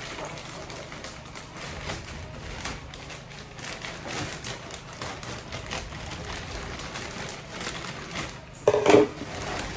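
Handling and rustling of a shopping bag and its packaging: many small crinkles and taps, with one louder brief sound near the end.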